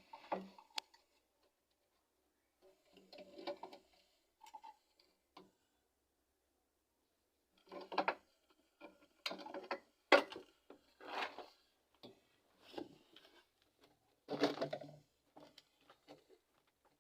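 Irregular knocks and clatter of hard objects being handled and set down, with a sharp strike about ten seconds in and a dense burst of clatter near the end.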